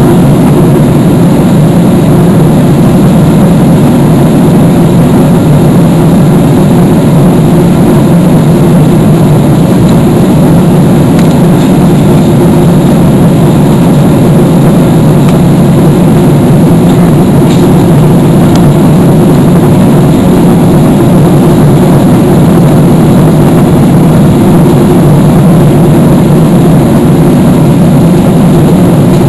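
Steady cabin noise inside a Boeing 777-300ER on its descent: the drone of its GE90 jet engines mixed with rushing airflow, heard at a window seat over the wing. The noise is loud and even, with no change in pitch.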